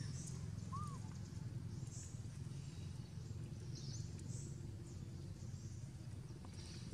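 Outdoor ambience: a steady low rumble with faint, scattered high bird chirps, and one short rising-and-falling chirp about a second in.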